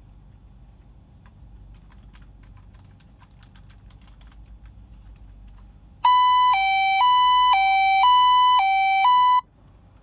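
VOCA V533 flip phone sounding its SOS alarm, a loud two-tone hi-lo siren switching pitch about twice a second. It starts about six seconds in, lasts about three and a half seconds and cuts off suddenly as the phone dials out to an emergency number. Before it, faint computer keyboard clicking.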